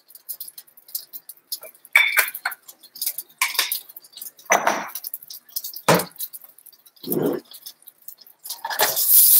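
Light clinks and clatters of a metal fork and dishes on a kitchen counter, with a few duller knocks in between. Near the end a loud hiss starts up.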